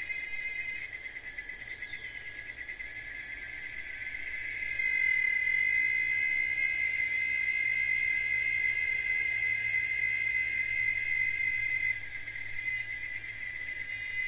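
Steady, shrill insect chorus with high, even trilling. It grows louder about five seconds in and falls back near the end.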